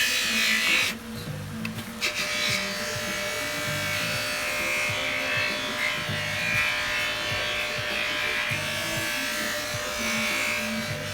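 Background music with a repeating bass line over an electric bench buffer running steadily, its buffing wheel hissing against a steel hubcap as it polishes. The hiss drops away for about a second, about a second in.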